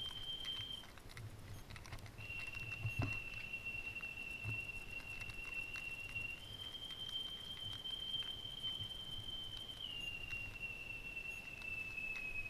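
A steady high-pitched whine that breaks off for about a second near the start, then returns and shifts up and down in pitch a couple of times, over light footsteps and soft taps of someone walking through the compartments.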